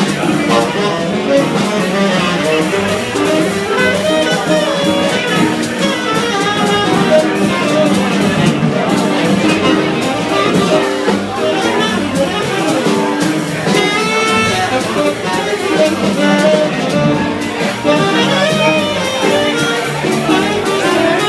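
Live jazz: a tenor saxophone plays a flowing melodic line over electric guitar and upright double bass.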